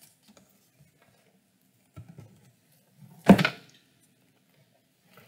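Handling noise from hardcover books being moved: a faint knock about two seconds in, then a louder short thump about a second later.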